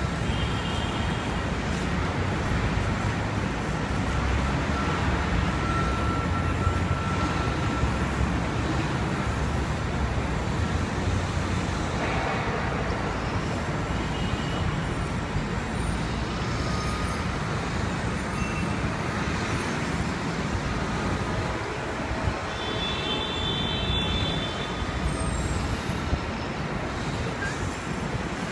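Steady city street traffic noise: cars and other vehicles running past in a continuous low rumble.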